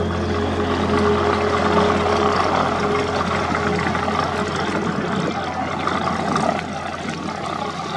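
Light aircraft's piston engine idling with a steady low hum, over a broad rush of noise. The engine's pitched tones fade after a few seconds, and the sound drops in level near the end.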